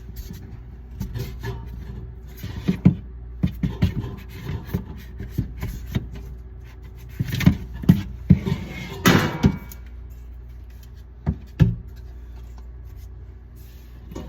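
Irregular clicks, taps and knocks of parts and tools being handled, over a steady low hum; the loudest knocks come in a cluster about eight to nine seconds in.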